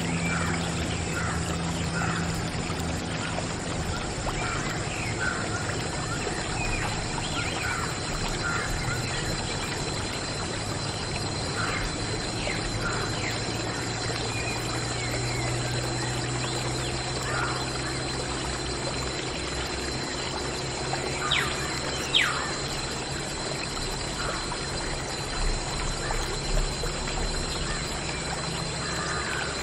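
A thin jet of water from a small homemade pump pouring and splashing onto plastic toy tractors, with a steady faint tone underneath.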